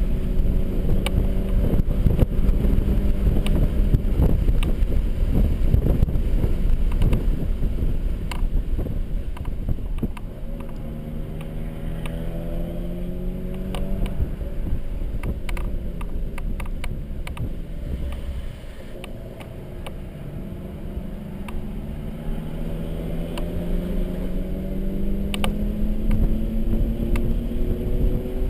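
Mercedes-Benz C300's engine under track driving in the rain: running at steady high revs, then easing off and pulling up through the revs twice, with a lift about two-thirds of the way in. Dense road and tyre noise throughout.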